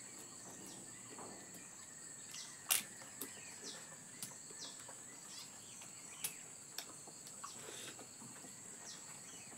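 Insects droning steadily on one high note, with birds giving short chirps that fall in pitch now and then. A few sharp clicks stand out, the loudest about three seconds in.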